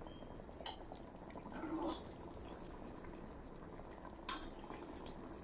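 Faint wet sounds of a steel ladle scooping thick dal-and-chicken curry in a pot, with light metal clinks about a second in and again near the end.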